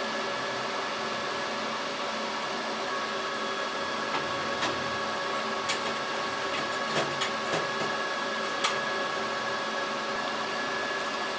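Computer server cooling fans running steadily, a hum with several whining tones, with a few light clicks scattered through it.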